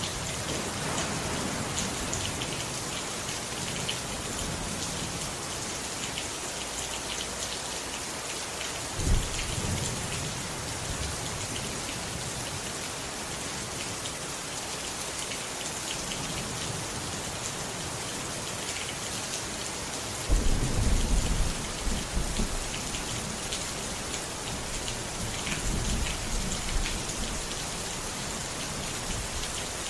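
Steady rain with rolls of thunder: a short rumble about nine seconds in and a louder, longer one about twenty seconds in, fading off over a few seconds.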